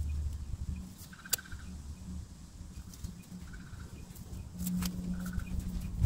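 A hand weeding tool scraping and digging in garden soil, with scattered sharp clicks as it strikes dirt and roots. A bird gives three short calls about two seconds apart, over a low hum that grows louder near the end.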